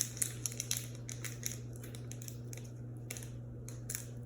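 Faint crinkling and small clicks of a foil booster pack being handled, with a sharper crackle right at the start, over a steady low electrical hum.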